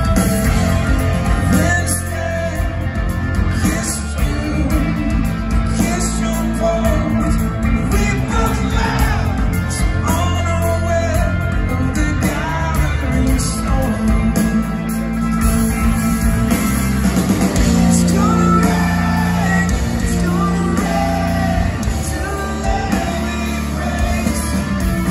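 Rock band playing live, with electric guitars, drums and a singer's voice.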